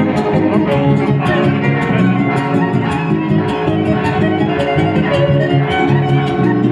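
Huapango arribeño string trio playing an instrumental passage: violin melody over strummed guitarra huapanguera and vihuela keeping a steady rhythm. Dancers' zapateado foot-stamping sounds as quick, sharp taps through the music.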